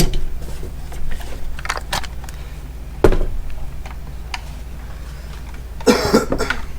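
Handling noises from a cordless impact wrench and its battery pack being moved about on a hard surface: scattered clicks and knocks, the loudest about three seconds in and a short cluster near the end, over a steady low hum.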